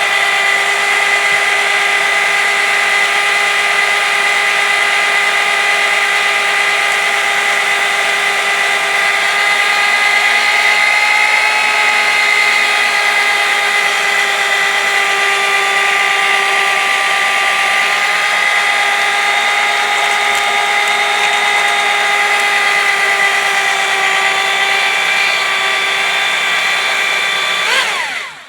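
Electric motor spinning a carbide-tipped circular saw blade through a bath of sand and fluid to scour pitch off the teeth. It gives a steady whine with several tones and cuts off suddenly near the end.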